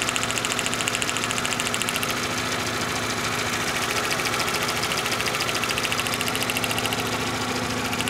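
Spark from the number four plug wire of a 2.0 L four-cylinder VW Jetta jumping to a test light as a rapid, even ticking, over the steady sound of the engine idling. It is a nice strong spark, showing a good plug wire.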